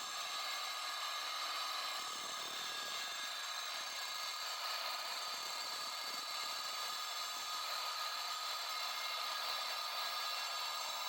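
DeWalt DWE490 9-inch angle grinder with a diamond disc, running steadily.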